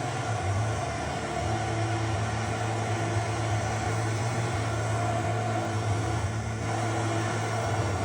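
Blow lamp flame burning steadily, heating a 35 mm copper pipe joint before solder is fed in.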